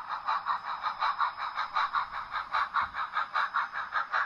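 HO-scale model train running on the layout, giving an even, steady rhythmic pulsing of about five beats a second.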